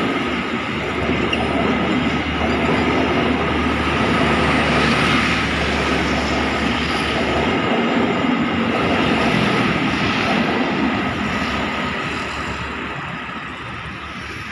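A train running past on the track, its rolling noise steady, then easing off over the last few seconds.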